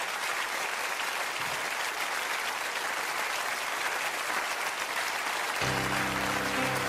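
Audience applauding steadily. About five and a half seconds in, music with held notes starts under the clapping.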